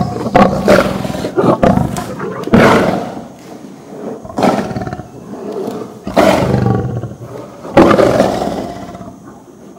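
Male lion roaring at close range in an angry display, about five loud outbursts a second or two apart, each fading off.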